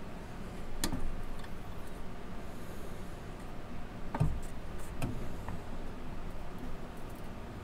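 Metal chassis of a vintage Heathkit IG-42 signal generator being handled and slid out of its cabinet. A few scattered clicks and knocks, the loudest a dull knock about four seconds in.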